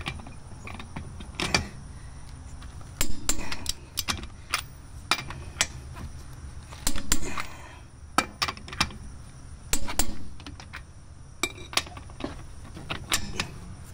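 Click-type torque wrench and socket working wheel lug nuts: sharp metallic clicks and clinks, scattered and in short clusters every second or two, the wrench clicking as each nut reaches its set torque.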